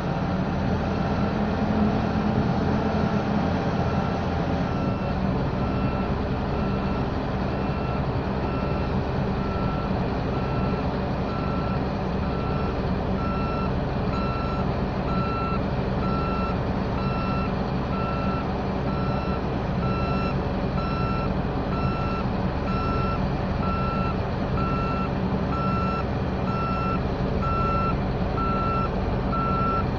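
A steady electronic beep repeating about once a second over the steady drone of a running engine.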